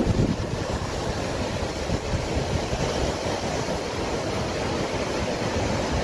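Sea waves breaking and washing over columnar basalt rocks, a steady surf with one louder crash right at the start. Wind is buffeting the microphone, adding a low rumble.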